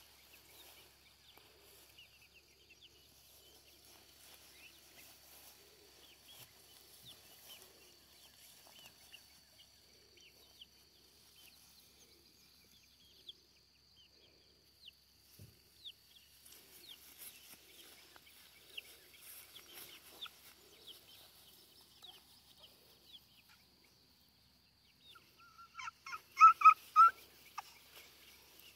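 Chickens clucking and chirping softly, with a steady high-pitched whine in the background. Near the end come a few loud, short calls in quick succession.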